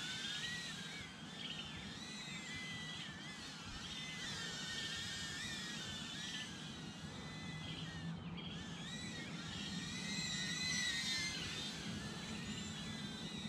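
Faint whine of the Eachine E013 Plus micro FPV quadcopter's brushed motors and small propellers in flight. The pitch wanders up and down as the throttle changes.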